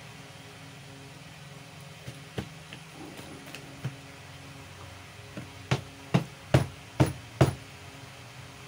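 Five sharp knocks, about two a second, as hard parts of a marble cutter's motor and gear housings are knocked together and against the bench while being handled, after a few lighter clicks. A steady low hum runs underneath.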